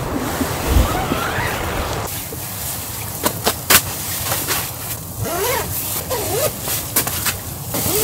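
Snowstorm wind blowing against the tent and microphone, cutting off suddenly about two seconds in. Then, inside the tent, fabric rustling with a series of sharp taps and knocks and a few faint wavering whistles.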